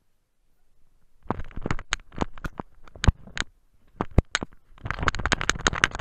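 About a second of silence, then a jumble of crunches, scrapes and sharp knocks, thickest near the end: snow crunching under a beagle's paws, with rubbing and bumping against the action camera.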